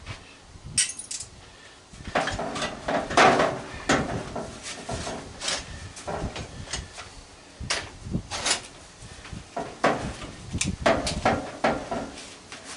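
Irregular metallic clinks, knocks and short scrapes of tools and the sheet-metal parts of a microwave being handled during disassembly.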